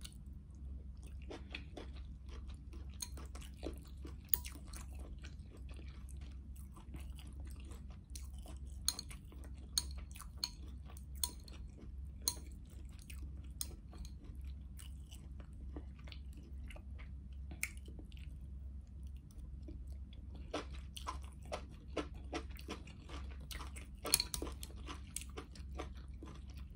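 Close-miked chewing and biting of noodle soup with okra and mushrooms, with scattered crisp crunches and sharp clicks, a few louder than the rest. A steady low hum runs underneath.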